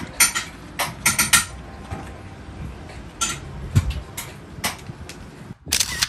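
Cups, utensils and café equipment clinking and knocking behind a coffee-stand counter, a dozen or so sharp clicks, some with a short ringing tone. A brief hiss comes near the end.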